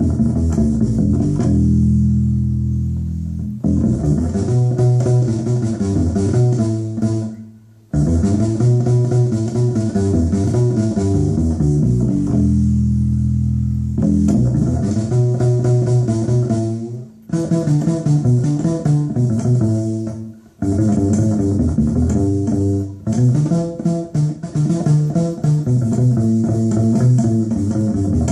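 Upright bass with a plastic bag threaded between its strings, plucked and slapped in an African-style, kalimba-like rhythmic pattern. The notes run continuously, with a few short breaks.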